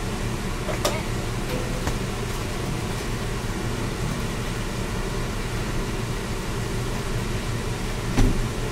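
Steady hum of the bus's air conditioners running in the RV cabin. A couple of light knocks, and a single thump near the end, as a sofa is pulled out into a bed.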